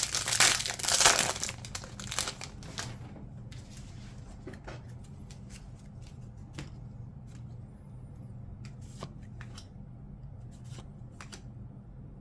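A trading-card pack wrapper crinkling and tearing for about two seconds. Then come scattered soft clicks and flicks of cards being handled and sorted.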